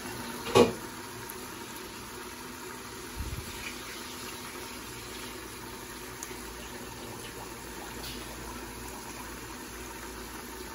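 Gravy simmering steadily in a stainless steel stock pot, a continuous bubbling hiss. A sharp metal clank comes about half a second in and a dull thump about three seconds in.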